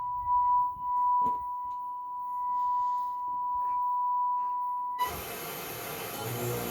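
Steady 1 kHz sine test tone, the signal used to bench-test a Pioneer SX-1250 stereo receiver after recapping, with a couple of faint knocks. The tone cuts off about five seconds in and music starts.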